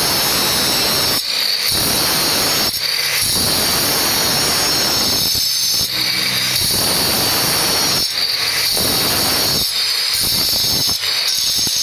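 Handheld electric marble cutter running at full speed with a steady high whine, its disc cutting into a strip of marble. The gritty noise of the blade biting the stone comes and goes every second or two as the strip is fed through in short passes.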